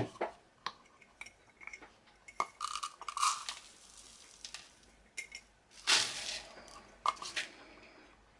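Dry porridge oats poured into a plastic measuring cup and tipped into a plastic mixing bowl: a rustling pour with light clicks and knocks of the plastic cup against jar and bowl. The longest pours come about three seconds and six seconds in.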